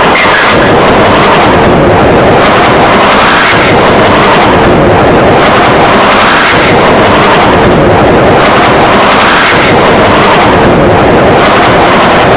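Loud, heavily distorted and clipped remix audio: a constant wall of harsh noise with surges every second or two, with no recognisable voice left in it.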